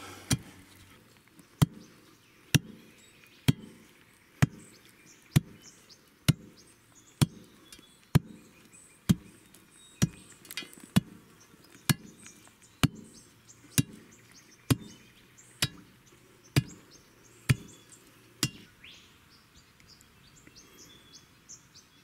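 Steel tamping bar driven down into the soil backfill around a timber post, about one thud a second, some twenty strokes that stop about three-quarters of the way through. This is the backfill being compacted layer by layer to set the pole firm in place of concrete.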